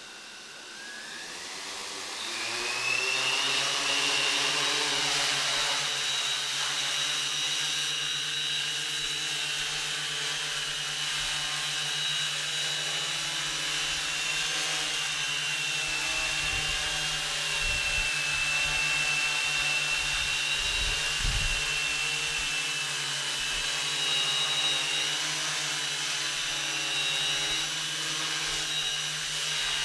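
Camera multicopter's electric motors and propellers spinning up with a rising whine about a second in, then a steady whine as it lifts off and hovers.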